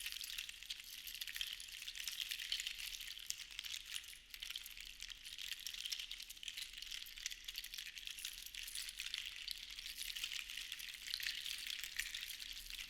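Sea shells rattling and clattering against one another in a dense, continuous crackle of small clicks that swells and ebbs gently, with a brief lull about four seconds in.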